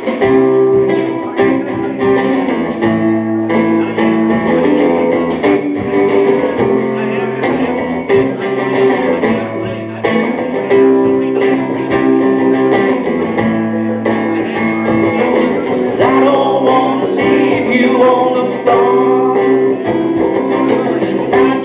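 A live band playing: guitar over bass and drum kit, with steady drum hits.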